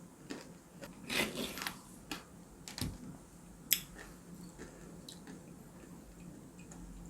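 Quiet eating sounds: a person crunching on shaved ice topped with candy-coated fruit, with short crunches and small clicks and one sharp click near the middle.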